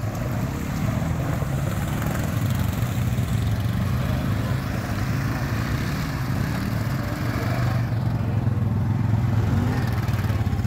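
Honda 4x4 ATV engine running steadily with a low, pulsing hum as the quad drives up out of shallow water onto sand.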